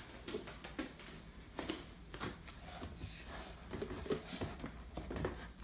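Scattered soft clicks, taps and rustles close to the microphone as a hand moves about and reaches for a kitten, over a faint low hum.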